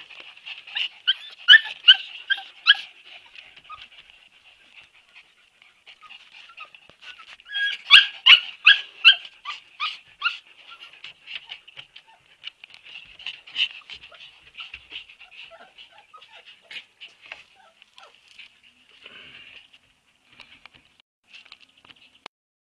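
Siberian husky puppies giving runs of short, high-pitched yips and whimpers, several a second. The loudest runs come about a second in and again around eight seconds in, and the calls thin out toward the end.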